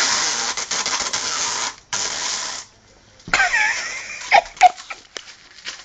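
Sellotape being pulled off the roll: a loud rasping pull for about two seconds, then a second, shorter pull. Softer wavering sounds and a few clicks follow about three seconds in.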